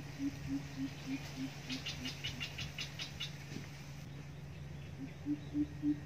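Coucal hoot series: deep, evenly spaced hoots about three a second, falling slightly in pitch and fading out. A new series starts near the end. Midway a quick run of about eight high clicking notes sounds, over a steady low hum.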